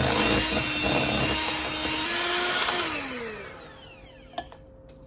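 Electric hand mixer with a single beater running in a glass bowl of white chocolate ganache, a steady motor whine. About three seconds in it is switched off and the whine falls in pitch and fades as the motor spins down, followed by a small click.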